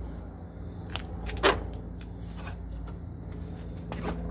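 Jeep Cherokee XJ's header panel being wiggled back into place by hand, giving a few short knocks and clicks, the loudest about a second and a half in, over a steady low hum.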